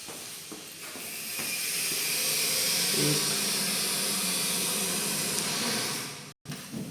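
A steady, loud hiss that swells about a second in and cuts off suddenly near the end.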